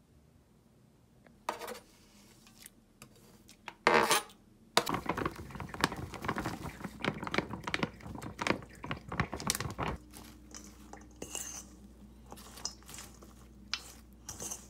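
Dishes and cutlery clinking and clattering: a few separate knocks at first, a busy run of clattering from about five to ten seconds in, then lighter scattered clinks.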